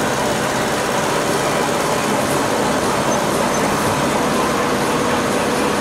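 Mercedes-Benz 208 D diesel van running along the road: steady engine and road noise with no change.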